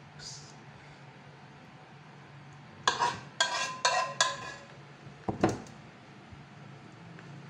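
A metal utensil clinking against dishes while food is plated: four ringing clinks about three seconds in, then two duller knocks a second later.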